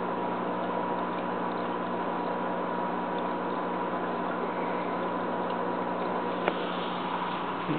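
Steady hum and hiss of an aquarium pump running, with a single sharp click about six and a half seconds in.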